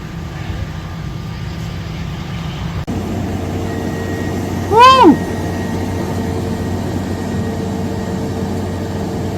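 Steady jet airliner engine noise with a constant hum, from aircraft at the airport. About five seconds in, one short loud voice-like sound rises and falls in pitch over it.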